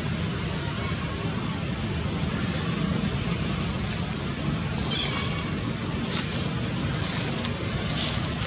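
Steady outdoor background rumble and hiss, with a few brief faint high sounds about five, six and eight seconds in.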